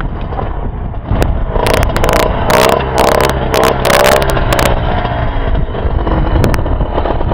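Dirt bike engines running and revving as two riders slow and pull up side by side. Wind noise on the helmet microphone. The sound gets louder about a second in, with wavering revs until nearly five seconds in, then settles.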